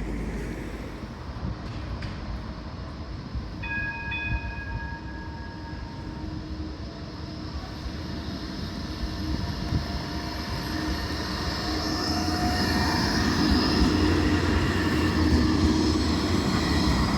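Blackpool tram running along the track and drawing closer, its rumble and motor whine growing steadily louder through the second half. About four seconds in, a short ringing tone sounds for about a second.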